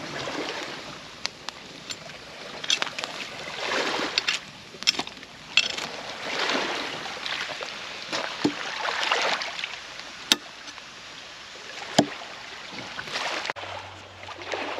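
Campfire crackling, with sharp pops and cracks here and there, the loudest about ten and twelve seconds in, over swells of rushing noise from waves washing on the shore.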